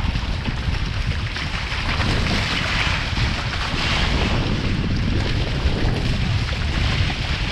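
Water rushing and spraying off the hulls of a small sailing catamaran under way, with heavy wind rumble on the microphone. The hiss of the spray swells in the middle.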